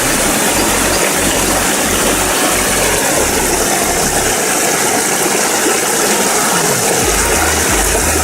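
Waterfall: a loud, steady rush of falling water, with a low rumble underneath that drops out about halfway through and returns near the end.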